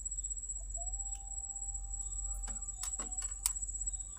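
Night insects, crickets, trilling steadily at a high pitch, joined about a second in by a steady lower-pitched call. Several sharp clicks come in quick succession in the middle.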